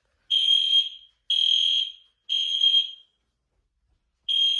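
Fire alarm sounding in the temporal-three evacuation pattern. Three high, steady electronic beeps come about a second apart, then a pause of over a second, and the next set begins near the end.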